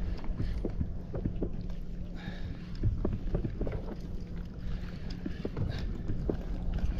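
Water slapping and splashing against a sea kayak's hull in small irregular knocks, over a steady low rumble of wind on the microphone.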